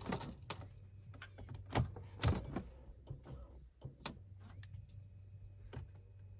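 Car key and key fob being handled at the ignition: a few scattered short clicks and knocks over a faint steady low hum.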